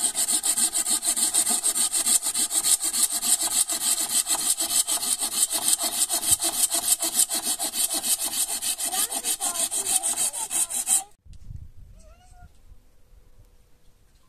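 Hand saw cutting firewood with rapid, regular rasping strokes that stop abruptly about eleven seconds in. A few faint short rising calls follow near the end.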